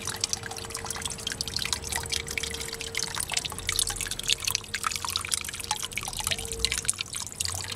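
Water falling from a vertical PVC pipe outlet into a small garden pond, a busy, irregular trickle and splash of drops on the surface. A faint steady hum runs underneath.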